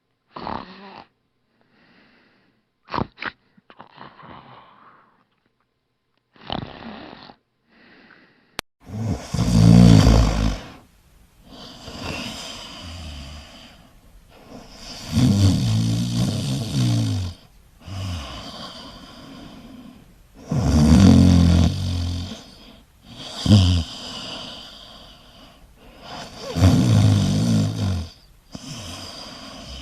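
Human snoring: first a few short, separate snorts with silence between them, then, about eight and a half seconds in, a louder snorer whose deep snores come about every five to six seconds with quieter breathing in between.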